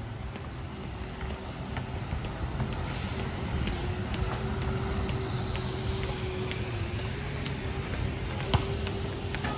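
Steady low mechanical rumble with a constant, slightly wavering hum, and a single sharp click near the end.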